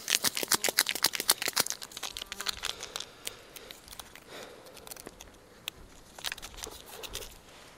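Crinkling of a wrapper handled in the hands: dense crinkles for about the first two seconds, then scattered quieter ones.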